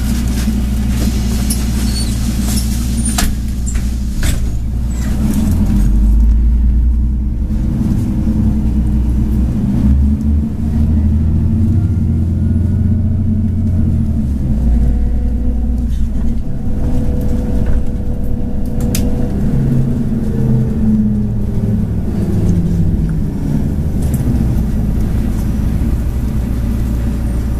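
City bus heard from inside the cabin while moving: a steady low engine rumble whose pitch rises and falls as the bus changes speed. There are sharp rattles and clicks in the first few seconds.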